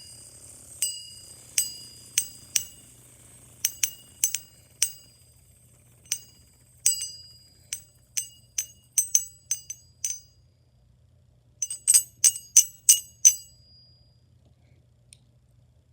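Small hard toys clinking and tapping together: irregular light knocks, each with a brief bright ring at the same high pitches, then a quick run of about six taps near the end before they stop.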